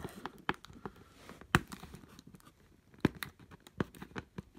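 Hands working at a cardboard box, with irregular clicks and taps as fingers press and pry at its flap. There is a sharper knock about one and a half seconds in and another about three seconds in.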